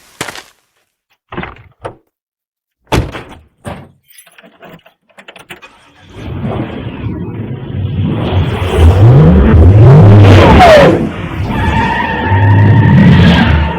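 Cinema sound-effects mix of cars: a few separate sharp knocks and clicks, then from about six seconds in a loud, swelling build of engines revving, with rising pitch sweeps and a falling one. A steady high tone comes in near the end.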